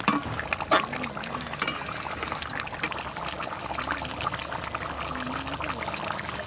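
Duck and papaya curry simmering and bubbling in a metal wok while a metal spatula stirs it, with a few sharp clinks of the spatula against the pan in the first two seconds.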